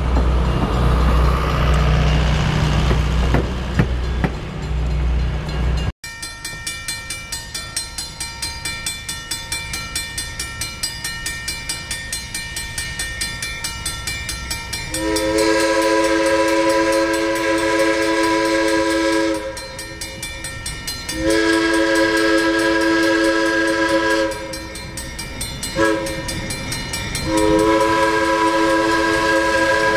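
Passenger coaches rumbling past over the rails for the first six seconds. Then a grade-crossing bell rings with quick regular strokes, and from about halfway through an approaching diesel locomotive's multi-note horn sounds the crossing signal: long, long, short, long.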